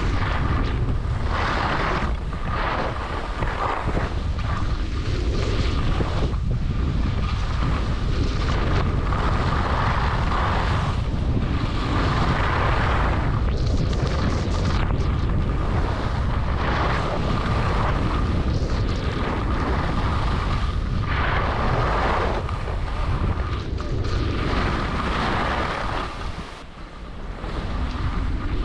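Wind buffeting the microphone of a skier's camera during a downhill run, with the hiss and scrape of skis carving turns on packed snow swelling every second or two. The rush drops briefly near the end.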